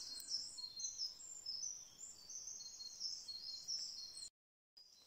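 Small songbirds chirping, with many short high notes overlapping one another. The sound drops out to dead silence for about half a second near the end.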